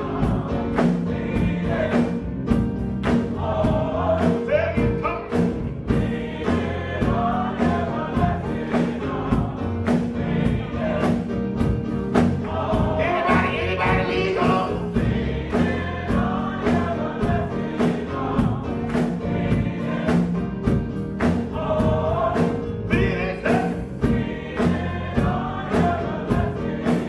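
Live gospel choir singing with keyboard and drum kit accompaniment, the drums keeping a steady beat.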